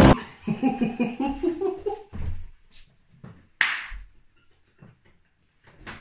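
Laughter in quick, rising bursts, then one sharp slap about three and a half seconds in.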